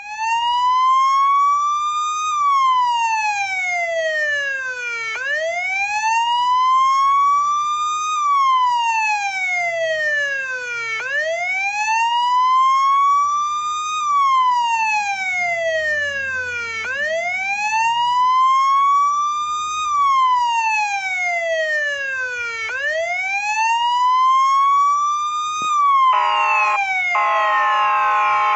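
Police siren in wail mode: a slow rise and fall in pitch, each cycle about six seconds, repeated about five times. Near the end a pulsing horn-like tone comes in over it.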